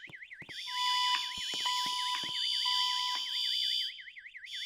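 Fire alarm evacuation tone: an electronic signal warbling rapidly up and down without a break, sounding between the system's recorded evacuation announcements. Through the middle a second, steadier tone sounds in broken stretches, with a few clicks.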